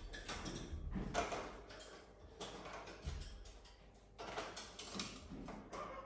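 Cockatoo clambering over a wire birdcage: irregular clicks, taps and light rattles of beak and claws on the metal bars.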